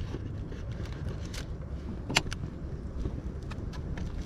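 Steady wind buffeting the microphone, with a few light clicks and one sharper click a little past halfway through.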